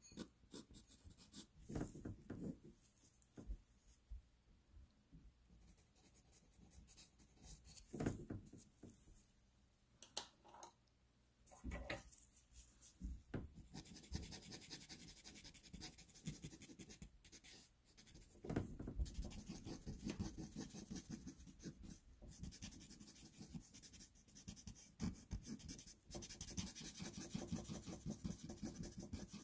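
Pastel pencil scratching faintly across pastel paper. It moves in scattered short strokes at first, then from about halfway through in rapid, continuous back-and-forth hatching.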